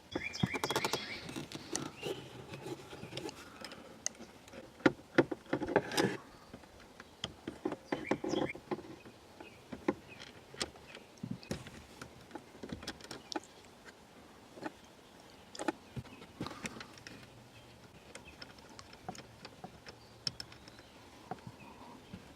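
Irregular clicks, taps and small metallic knocks of hand tools working at the steering lock mechanism's bolts, which are being backed out with a flat screwdriver through slots cut in their rounded heads. The louder taps bunch in the first third; the rest are lighter and scattered.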